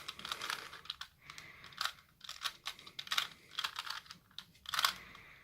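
A hand-turned 3×3 Rubik's Cube, its plastic layers clicking and clacking in a quick, irregular run of turns as a solving move sequence is performed.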